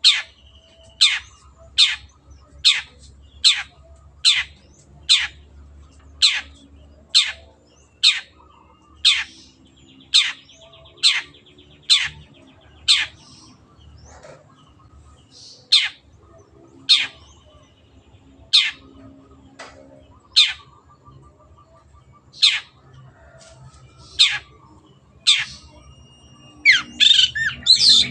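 Long-tailed shrike (cendet) giving a long series of sharp, downward-sweeping calls, about one a second at first and then more widely spaced. Near the end it breaks into a dense, rapid chatter.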